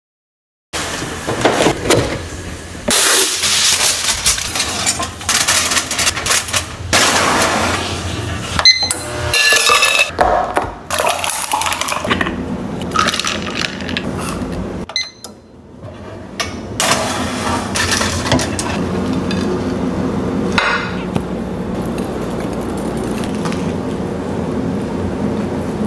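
A run of kitchen sounds: sharp clinks of glass and dishes, coffee poured from a glass carafe into an insulated metal tumbler, and a crunchy bite into crusty baked food near the end.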